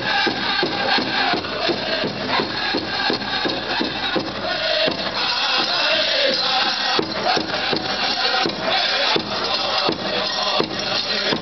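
Powwow drum group playing a song for the grass dance: a big drum struck in a steady, even beat, with singers' voices wavering over it.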